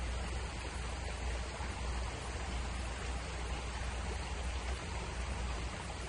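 Steady rushing hiss of water, with a low rumble underneath.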